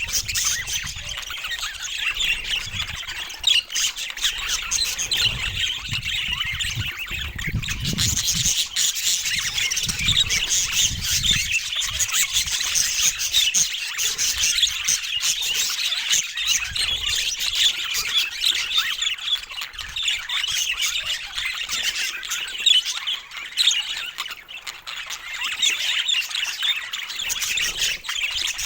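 A group of pet budgerigars chattering, a dense, unbroken mix of warbling, chirps and squawks.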